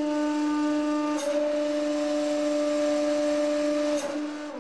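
150-ton hydraulic press's pump running with a steady, even-pitched hum while the ram lifts off the crushed stack. A short click comes about a second in and another near the end, and right at the end the hum drops in pitch as the pump winds down.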